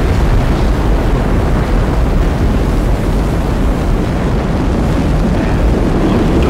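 Rocket engines at liftoff: a loud, steady, deep rumbling noise with no break or change in pitch.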